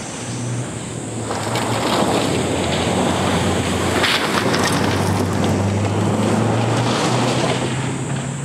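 Mitsubishi Lancer Evolution rally car's turbocharged four-cylinder engine at full throttle as it approaches, slides past on a gravel stage and pulls away, with gravel spraying from the tyres. The engine note breaks briefly about four seconds in, then runs on and fades near the end.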